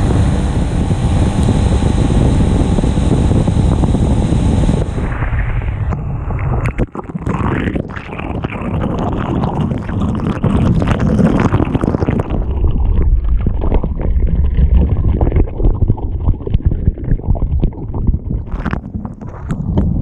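A bass boat running across the water under its outboard motor, with heavy wind buffeting the microphone. A steady motor hum is clearest for the first few seconds, then an abrupt change leaves mostly rough wind noise.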